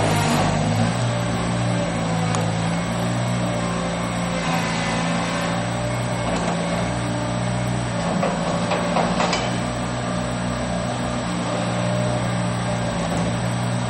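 Gehl 4510 skid steer loader's engine running at a steady speed, with a few short knocks about two, eight and nine seconds in.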